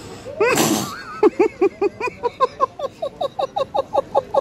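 A person laughing hard: a breathy burst of laughter about half a second in, then a long run of short high-pitched laughs, about six a second, getting quicker toward the end.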